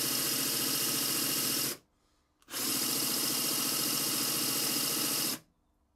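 Electric drill running, turning the crankshaft of a coupled pair of model oscillating-cylinder steam engines to bed them in; the engines turn over smoothly with no sign of trouble. It runs steadily, stops sharply just under two seconds in, starts again about half a second later and stops again near the end.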